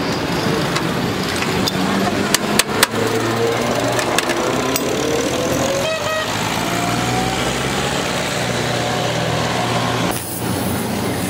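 Steady motor hum with a hiss over it, a few sharp metal clinks about two and a half seconds in, and a faint whine rising in pitch through the middle.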